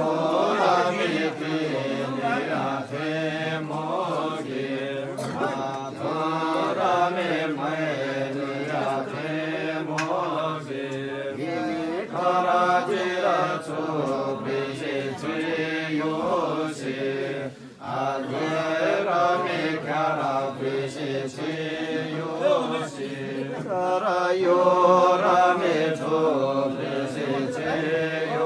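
Chanted recitation of a Gurung funeral rite (arghau), the ritual chant of the pachyu and klehpri priests. It runs on continuously, with a steady low held tone under a moving line of melody, and breaks off briefly about two-thirds of the way through.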